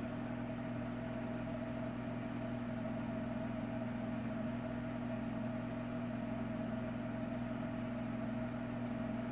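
A steady low machine hum with a few fixed tones.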